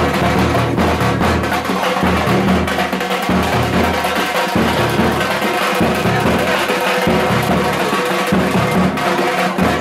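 Music with drums and percussion and a steady beat.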